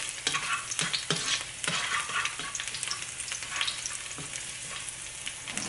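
Chopped garlic sizzling in hot oil in a wok, with a spatula stirring it and clicking and scraping against the pan now and then. The garlic is being fried until fragrant.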